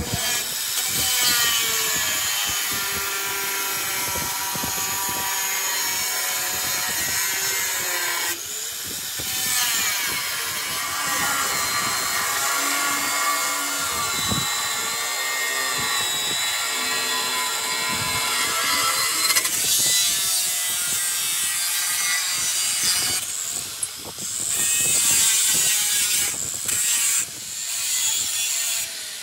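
Metal being cut or ground with a workshop tool, a continuous harsh sawing sound with whining tones that shift in pitch. It eases off briefly about 8 seconds in and again near 19 seconds, and breaks into shorter passes near the end.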